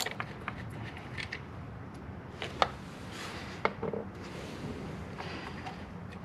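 Light clicks and scraping of a hand ratchet and metal parts being handled while the EVAP purge valve's bolt is backed out, with two sharp clicks about a second apart a little past the middle.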